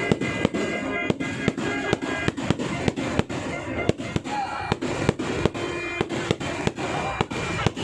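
Fireworks going off in quick succession, sharp bangs at about three or four a second, with music playing underneath.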